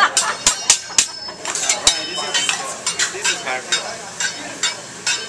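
Hibachi chef's metal spatula and utensils clacking against each other and the steel teppanyaki griddle: a quick run of sharp clanks, a few ringing briefly, over the griddle sizzling.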